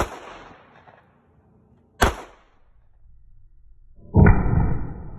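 Two pistol shots from a German Luger in .30 Luger, about two seconds apart, each a sharp crack with a short echoing tail. About four seconds in, a loud sustained rumble with steady tones begins and slowly fades.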